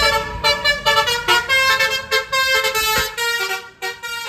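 Bus's musical multi-tone horn (klakson telolet) playing a quick tune of short notes that jump between pitches several times a second, thinning out near the end.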